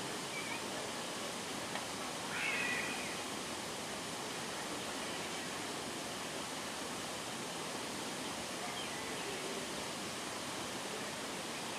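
Steady outdoor background hiss, with a few faint short chirps; the clearest comes about two and a half seconds in.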